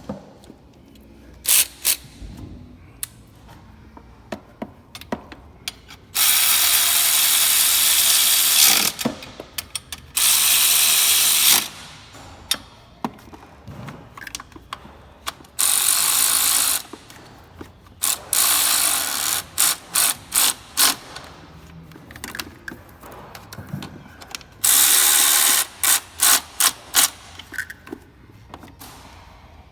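Ratchet wrench running nuts and bolts down: several loud spells of fast ratcheting, each lasting one to two and a half seconds, with slower runs of single clicks between them.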